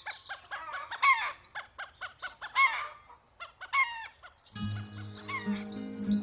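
Chickens clucking and squawking in a run of short calls that fall in pitch. About four and a half seconds in, background music starts under them.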